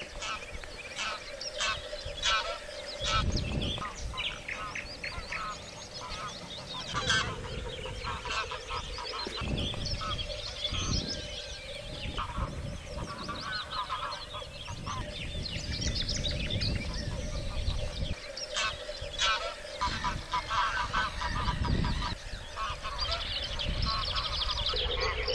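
A flock of geese honking, many short calls overlapping continuously, with a few low rumbles at times.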